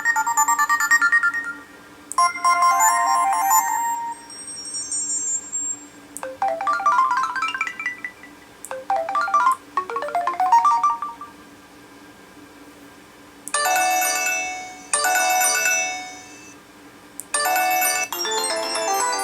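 HTC Desire 610 ringtones played through the phone's speaker one after another: a string of short chiming melodies, each cut off after a second or two as the next tone is chosen, with a pause of about two seconds in the middle.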